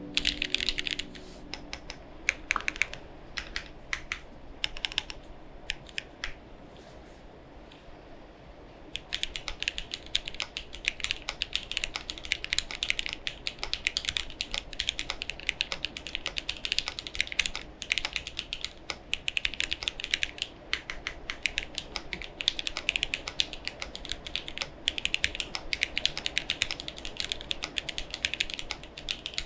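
Mechanical keyboard with Gateron Ink Black linear switches, GMK Norse keycaps and no case foam being typed on. A few scattered keystrokes come first, then a brief lull, and from about nine seconds in there is steady, fast typing.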